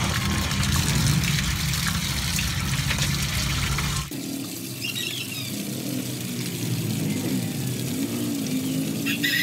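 Water running and splashing into a plastic basin as chicken heads are rinsed again after a salt rub. The steady rush cuts off suddenly about four seconds in, leaving quieter faint sounds.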